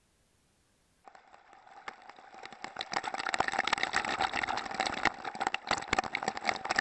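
Near silence for about the first second. Then water starts splashing and sloshing against an SJ4000 action camera in its waterproof housing: a dense crackle over a steady tone, heard through the housing, starting suddenly and growing louder over the next two seconds.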